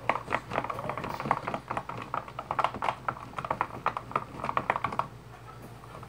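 A utensil stirring a thick glue-and-shaving-cream slime mixture in a plastic tub, making rapid, irregular clicks and taps against the container that thin out about five seconds in.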